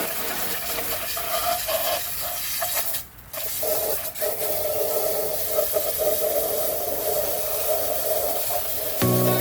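A steady spray hissing, stopping for a moment about three seconds in and then running on, as the engine is cleaned of gunk and oil.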